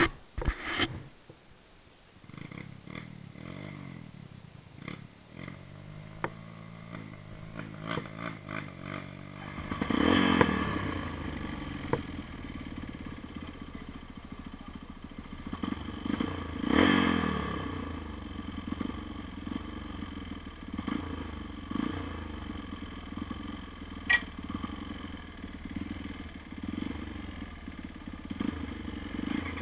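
Trail motorcycle engine running, revving up strongly twice, about a third of the way in and again a little past halfway, with a sharp knock at the very start.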